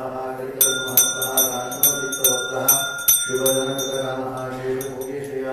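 A man chanting a mantra in a sustained sung voice while a small brass hand bell (ghanta) is rung over it, struck about two or three times a second. The bell stops about a second before the end, and the chanting carries on.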